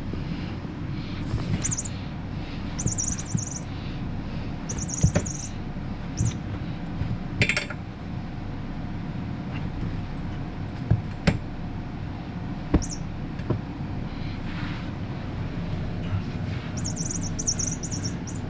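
Puppy at play with an orange rubber chew toy: short high-pitched squeaks come in scattered bursts, with a few sharp knocks, over a steady low hum.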